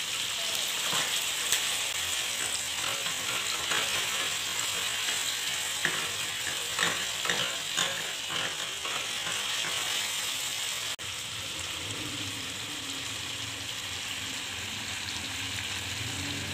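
Marinated chicken pieces sizzling steadily as they fry in oil in a pan. A run of sharp clicks and knocks comes near the middle.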